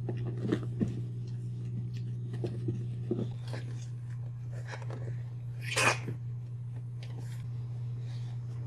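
Boxer puppies and their mother snuffling and scuffling about, a string of short sniffs and snorts, with one louder, sharper burst about six seconds in, over a steady low hum.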